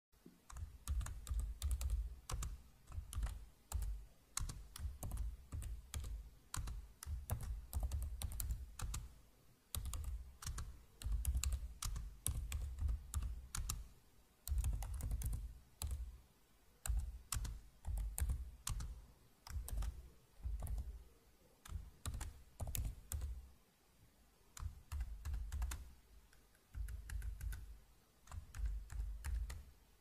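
Typing on a Mac computer keyboard: quick runs of key clicks in bursts of a second or two, broken by short pauses, with a low thudding under each run.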